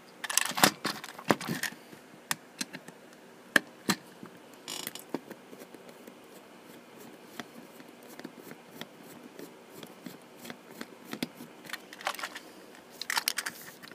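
Plastic clicks and ticks from a Trackmaster battery toy locomotive being handled and turned over by hand, with quick clusters of clicks about half a second in and again near the end.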